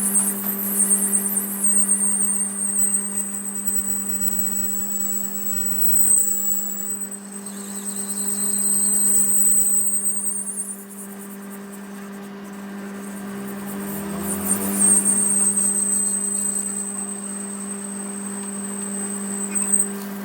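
Metal-working machine running with a steady motor hum, over which a thin, high-pitched whine of tool on metal comes and goes, dropping out for a few seconds in the middle.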